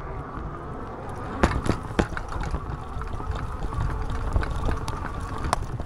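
Electric fat bike riding along a paved path: a steady rumble of wind on the microphone and tyres on the paving, with a few sharp knocks from bumps about a second and a half to two seconds in and again near the end.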